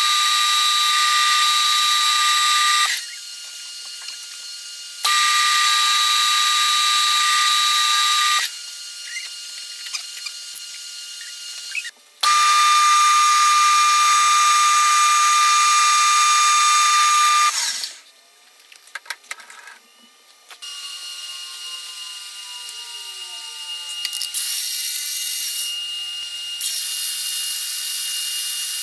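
A metal lathe runs with a steady whine while turning and knurling an aluminium part, in several stretches that start and stop abruptly. Near the end a drill press spindle runs steadily as a twist drill bores into the aluminium.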